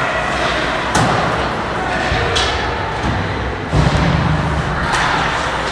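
Ice hockey play in a rink: three sharp knocks and one heavier thud a little before four seconds in, over spectators' voices.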